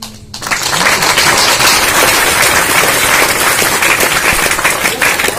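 Audience applauding: many people clapping at once, starting suddenly just after the start and staying loud and dense throughout.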